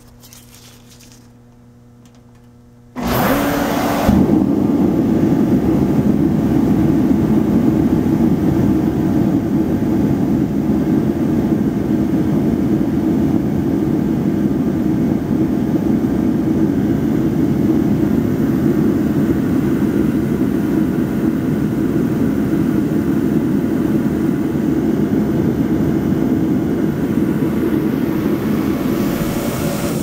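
Reddy torpedo heater firing up about three seconds in: its fan and burner run with a loud, steady rush of air and flame, the heater lit and working.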